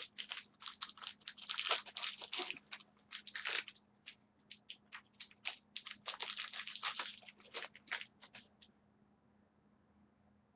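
Crinkling and tearing of a trading-card pack wrapper as the pack is ripped open and the cards are pulled out, in dense irregular crackles that thin to a few light ticks near the end.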